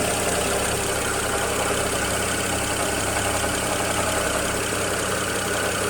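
BMW N54 twin-turbo inline-six in an X6 idling steadily, on a car with a rough-idle complaint and no fault code.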